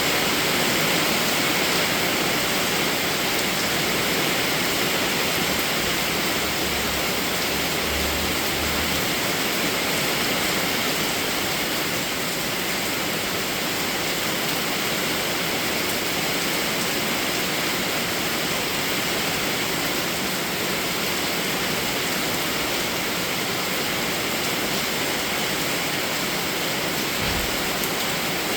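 Steady heavy rain, a dense even hiss with no breaks or changes in level.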